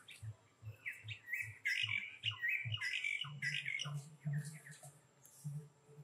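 A run of short, high, squeaky chirping calls from animals, loudest and most crowded in the middle. Under them a low, soft beat repeats about two and a half times a second.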